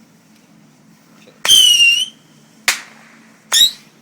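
Fireworks going off: three sharp reports, the first and loudest with a short whistle, then two quick cracks about a second apart.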